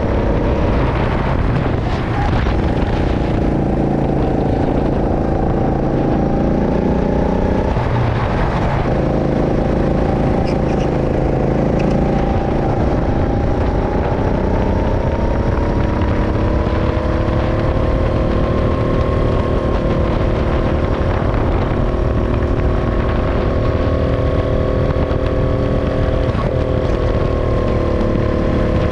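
Go-kart engine running hard, heard from the driver's seat. Its pitch sags twice, about two and eight seconds in, as the kart eases off through bends, then climbs steadily as it accelerates down a straight and holds high.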